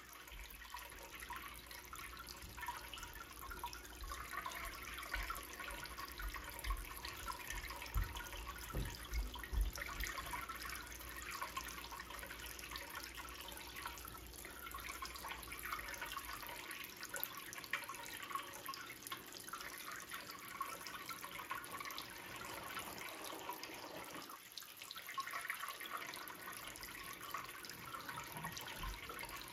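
Small streams of water pouring and splashing into a plastic tub from the spouts and fountain of a homemade model water park, a steady trickling and splashing. A low rumble underneath stops a little over halfway through.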